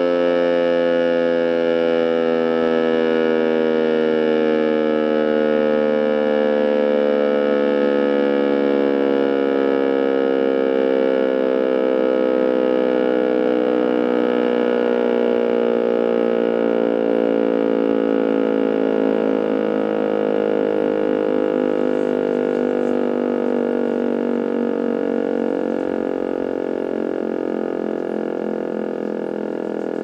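Rotary electromechanical civil-defence siren winding down, its howl sliding slowly and steadily lower in pitch while it fades a little toward the end: the rotor coasting down after the signal has ended.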